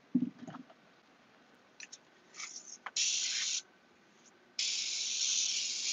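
Iwata Eclipse airbrush spraying paint with a steady hiss of air: a short half-second burst about three seconds in, then continuous spraying from just before five seconds on. A few light clicks of handling come before the first burst.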